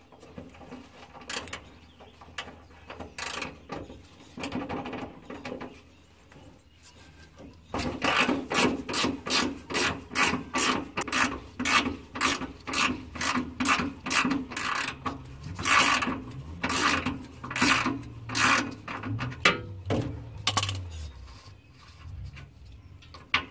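Ratchet wrench clicking in short back-and-forth strokes as it undoes a rusty nut on a rear shock absorber's upper mounting stud. Faint and sparse at first, then louder and steadier from about a third of the way in, at about two strokes a second, easing off near the end.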